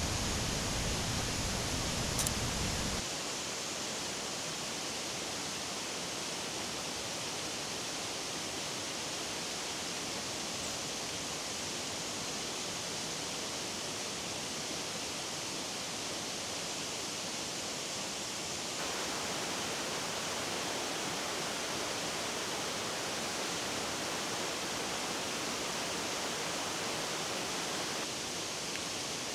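Steady, even rushing of water with no distinct events; the sound drops abruptly about three seconds in, losing its deep rumble, and rises a little again at about nineteen seconds.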